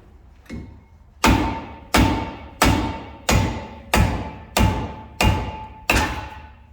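Hammer blows on a rusted-on brake rotor to knock it off the hub: a light knock, then eight heavy strikes about one and a half a second, each leaving the rotor ringing.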